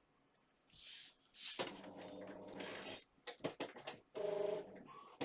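A home printer at work: a short hiss, then a motor whirring with a buzzing hum for over a second, a run of clicks, a brief higher whine, and a click near the end.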